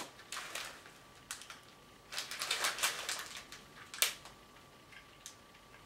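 Plastic candy wrapper on a milk-coffee candy crinkling and crackling as it is opened by hand, with scattered clicks, a dense run of crackles about two to three seconds in and one sharp snap about four seconds in.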